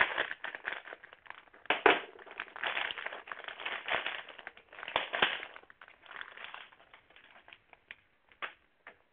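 Plastic courier mailer bag crinkling and rustling as it is handled and opened, with a couple of sharp crackles. It dies down over the last two seconds.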